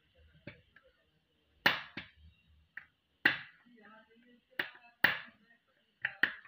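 Sharp clicks and snaps, about ten of them at uneven intervals, as a thin metal tool picks and pries at a faulty LED point on an LED tube light's strip to remove it, over a faint steady high hiss.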